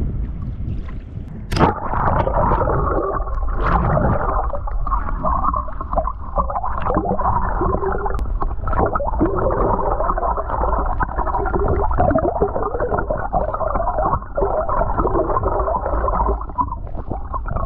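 Muffled underwater sound with the microphone submerged: a splash as it goes under about a second and a half in, then continuous gurgling and bubbling of lake water around it.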